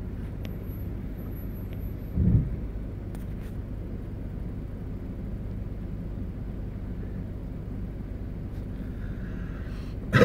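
Steady low rumble of a vehicle's engine running, heard from inside the cabin, with a brief low thump about two seconds in and a short, louder sound at the very end.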